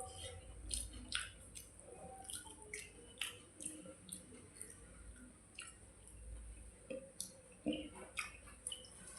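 Wet eating sounds of panta bhat, rice soaked in water: irregular soft smacks and squishy clicks, a few each second, from chewing the watery rice and working it by hand.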